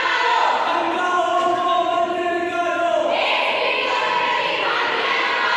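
A group of voices singing together in unison, holding long notes.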